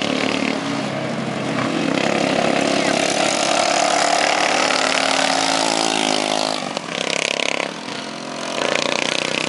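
Racing lawn mower engines running hard around a dirt oval, their pitch sliding down midway, then the sound dipping briefly about eight seconds in.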